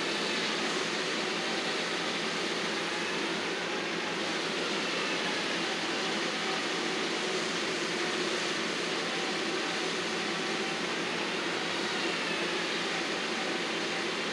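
Heavy landscaping machinery running steadily, with a faint whine that wavers slowly in pitch.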